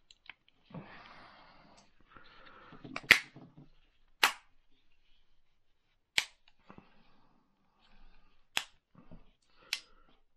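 Plastic casing of an old cordless phone handset being pressed shut: five sharp snaps, a second or two apart, as the clips catch, with soft handling rustle between.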